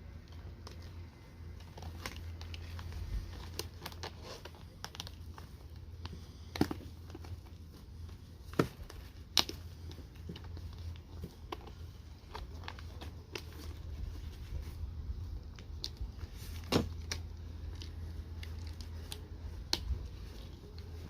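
Packaging being unpacked by hand: crinkling and tearing, with several sharp clicks or knocks scattered through.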